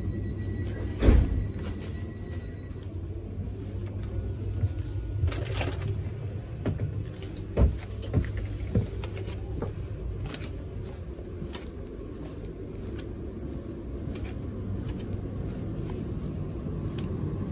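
Steady low rumble inside a passenger train carriage, with a loud knock about a second in and a few sharper knocks around eight seconds in as an internal door is passed.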